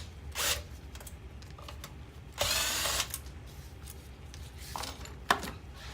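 Cordless power screwdriver running in short bursts, backing Phillips screws out of a car navigation unit's metal housing, with a few sharp clicks of small parts near the end.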